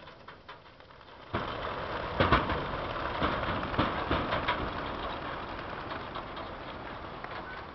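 A flock of racing pigeons bursting out of a truck's release crates: about a second in, a sudden mass of wing clapping and flapping starts, loudest just after takeoff, then slowly fades as the birds fly off.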